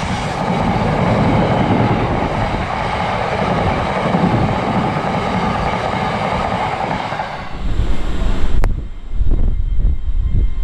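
A freight train's wagons passing close at speed: a steady rushing rumble of wheels on rail that eases off about three-quarters of the way through. After a sudden cut, an uneven low rumble takes over.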